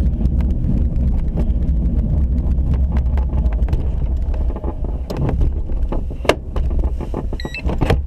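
Duo Discus glider rolling along the runway on its main wheel: a steady low rumble with frequent knocks and rattles from the airframe and canopy, plus wind on the microphone. The rumble eases after about five seconds, and a few short electronic beeps sound near the end.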